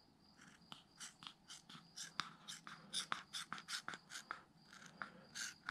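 Scissors cutting through a rubber bicycle inner tube: a run of short faint snips, about four a second.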